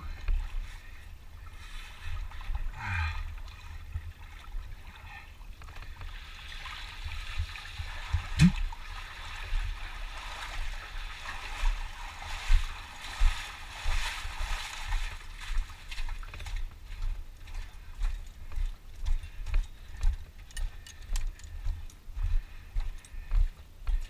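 Hikers wading and splashing through a shallow pool of water, then boots walking on the damp sand and rock of a slot canyon floor, with steady footfalls.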